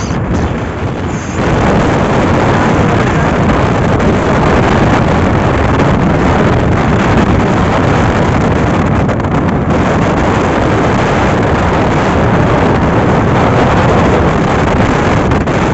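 Wind rushing over the microphone on a motorcycle moving at highway speed, a loud steady noise with road and vehicle sound mixed in. It is a little softer for about the first second and a half, then holds even.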